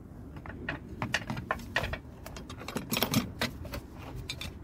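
Battery hold-down bracket clicking and rattling against the battery case and tray as a gloved hand works its hook into place: a string of irregular light clicks, bunched in two clusters.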